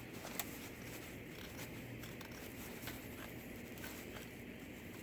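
A folding knife's blade shaving and scraping a stick of old fat wood: faint, uneven scraping with scattered small ticks.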